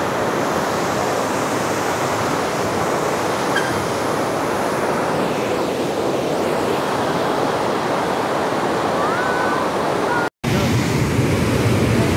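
Rushing white water of a rocky mountain stream tumbling over boulders: a loud, steady rush. It breaks off for a moment about ten seconds in, then resumes heavier in the low end.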